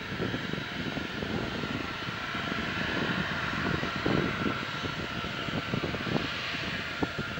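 Boeing 737-800's CFM56-7B jet engines during landing: a steady jet roar with a high whine, over an uneven low rumble.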